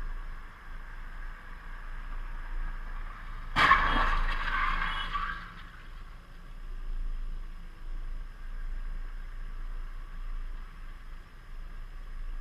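Two cars colliding at an intersection: one sudden crash about a third of the way in, with a ringing that fades over about a second and a half. A faint steady hum runs underneath.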